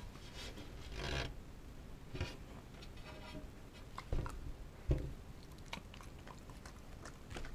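Pembroke Welsh corgi taking a small treat from a hand and chewing it: a few short snaps and snuffles, then faint ticks.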